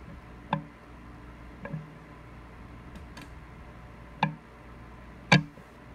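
Four sharp, separate metallic clicks, spaced irregularly with the last the loudest, from a wrench as the VW 1.6 L diesel engine is turned over by hand toward top dead centre.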